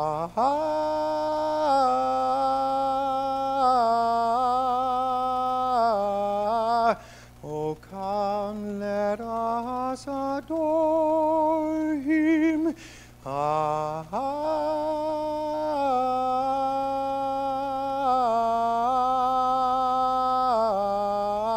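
A man singing a Christmas song solo into a handheld microphone, with long held notes and a wavering vibrato. The voice breaks off briefly twice, about seven and thirteen seconds in.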